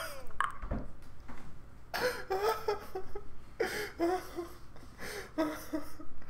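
A man laughing hard in short, breathless bursts that come again and again.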